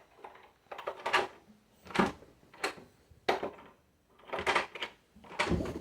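A hotel room door being opened and handled: a series of separate clicks and knocks from the latch and the door, with short quiet gaps between them.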